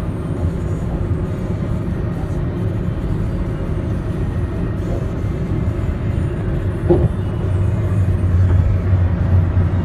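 Steady road and tyre rumble of a car at highway speed, heard from inside the cabin, with music underneath. A single short thump about seven seconds in, and the low rumble grows a little louder after it.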